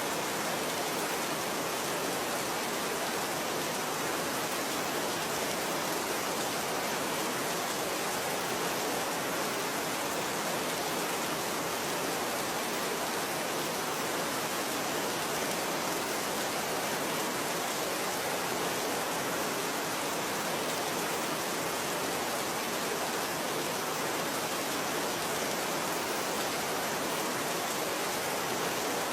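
Steady rainfall, an even hiss without distinct drops or thunder.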